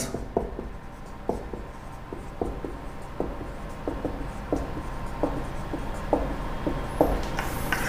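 Marker pen writing on a whiteboard: a string of short, irregular strokes and taps as words are written.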